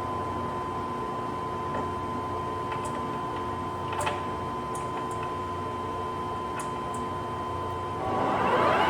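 Lion C13MB gap-bed engine lathe running under power with a steady gear whine and a few light clicks. Near the end the whine climbs in pitch and grows louder as the spindle is brought up to a higher speed.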